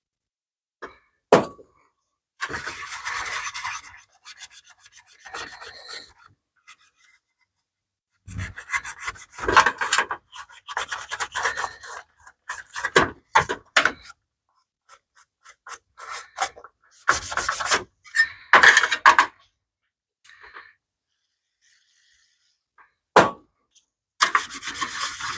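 Scouring pad scrubbing the greasy metal exhaust heat shield of a BMW E30 motor mount, in bursts of strokes with pauses between. Two sharp knocks, about a second in and near the end.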